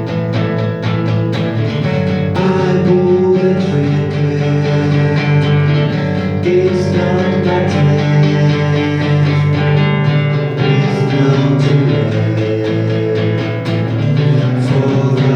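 A guitar-led song played live: guitar strummed and picked steadily, with a sung melody over it.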